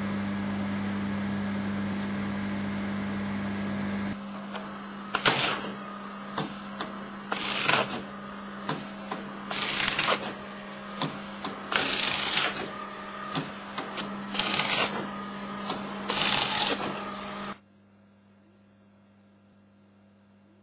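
Morso EH mitre guillotine in use: a steady electric hum, then six crisp cutting strokes about two seconds apart, with small clicks between them, as the blades shear through moulding. The sound cuts off suddenly near the end.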